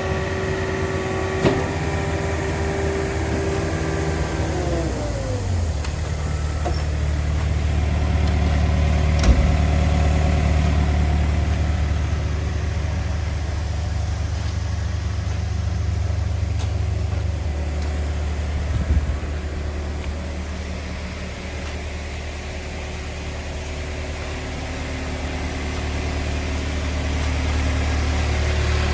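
Takeuchi TB260 excavator's diesel engine running at raised revs, then winding down to a steady low idle about five seconds in. A few short knocks sound over the idle, the sharpest about nine seconds in.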